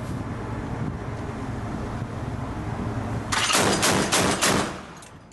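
Mk 38 25mm chain gun (M242 Bushmaster) firing in automatic: a short burst of about six rounds a fifth of a second apart, beginning a bit over three seconds in, over a steady low machinery hum.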